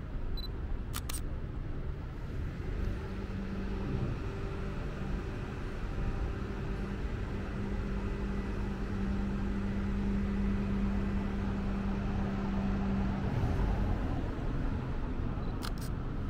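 Night-time city street ambience: a steady traffic-like background noise with a steady low hum that comes in about three seconds in, grows a little louder, and stops about thirteen seconds in. Two short clicks, one near the start and one near the end.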